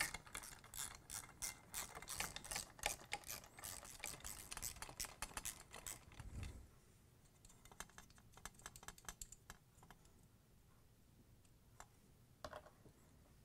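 Ratchet of a 3/8-inch deep socket wrench clicking rapidly as nuts are backed off a washer motor's mounting carriage. The clicking thins to a few scattered clicks after about six seconds.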